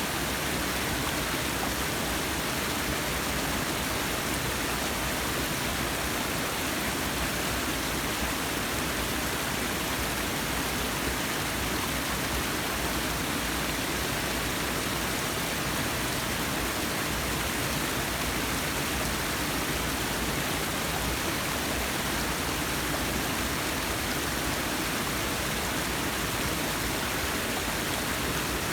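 Forest waterfall splashing and rushing steadily, an even roar of falling water.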